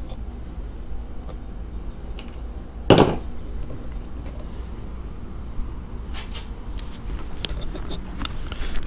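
Handling noises from tools and oil containers: light clicks and faint high squeaks, with one loud knock about three seconds in.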